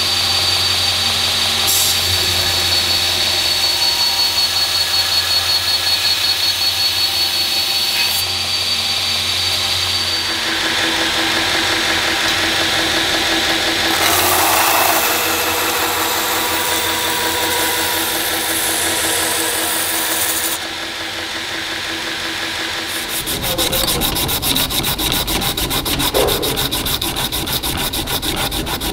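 Belt grinder running with a steady hum and high whine while a Damascus steel knife blade is ground against the abrasive belt. In the last few seconds the sound changes to hand sanding: rhythmic back-and-forth strokes of abrasive paper rubbing on the steel blade.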